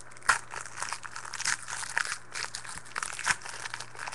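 Foil wrapper of a trading-card pack crinkling in the hands as it is opened, with irregular sharp crackles, the loudest about a third of a second in.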